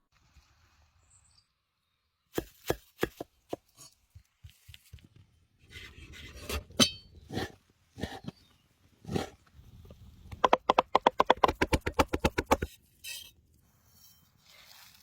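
Knife striking a cutting board: scattered single knocks, then a quick run of fast chopping at about eight strokes a second for a little over two seconds near the end.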